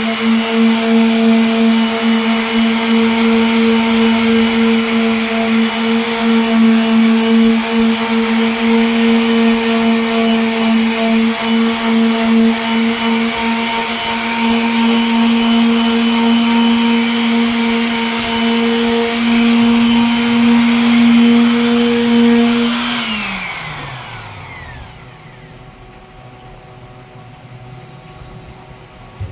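Electric sander running steadily with a constant motor whine, sanding a headlight lens with 120-grit paper. About 23 seconds in it is switched off and winds down, its pitch falling away.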